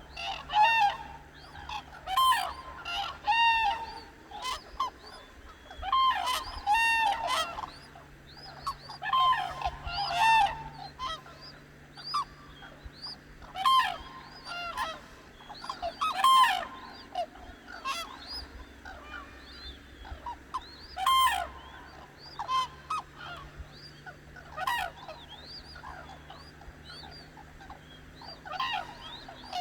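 A flock of cranes calling: loud, ringing calls, often two or three overlapping, come in clusters every second or two and thin out over the last several seconds. A faint steady low hum runs underneath.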